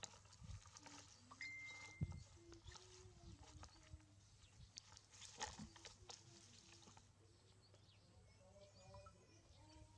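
Near silence: a faint background hum with scattered light clicks and taps.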